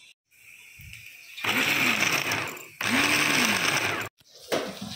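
Mini food chopper whirring in two short pulses as it chops tomatoes and green chillies. Each pulse speeds up, then slows down.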